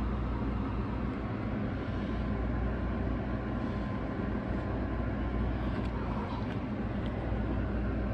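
Steady low background hum with a few faint rustles and ticks about six seconds in, as the shrink-wrapped record sleeve is handled.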